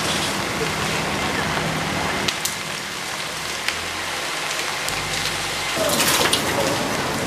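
A burning building: a steady rushing hiss with a few sharp crackles, growing louder about six seconds in.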